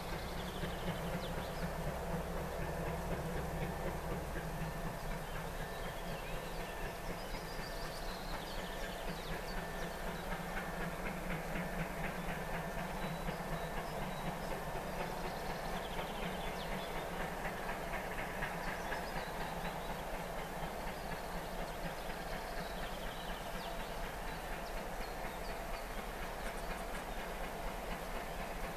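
Ol49 steam locomotive and its train heard from a distance while still out of sight: a steady, even rumble with a faint rhythmic beat in it.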